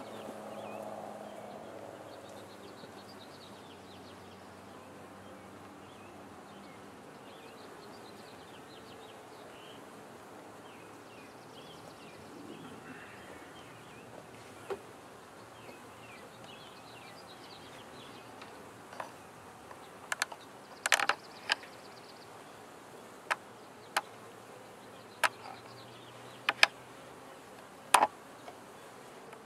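Honeybees buzzing at an open hive, with birds chirping faintly. In the last third come a dozen sharp clicks and knocks: a metal hive tool prying and loosening the wooden frames.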